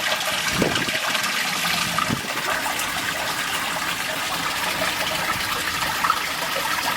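Steady running water in a koi pond, splashing and trickling continuously.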